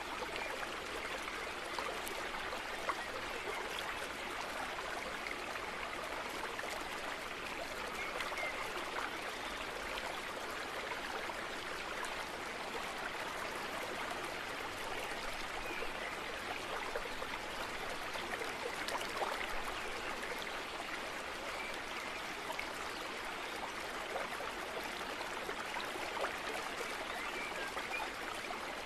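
Steady even hiss with a few faint clicks scattered through it.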